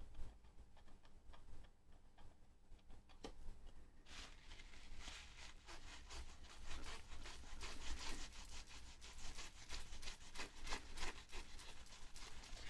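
Hand rubbing and scrubbing at old, stubborn adhesive with adhesive remover, faint at first, then a run of quick repeated scratchy strokes from about four seconds in.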